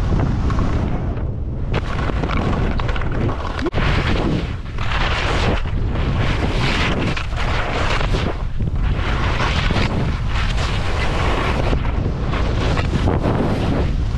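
Heavy wind noise on a GoPro's microphone during a fast ski descent, with skis hissing and scraping through the snow in repeated surges at each turn.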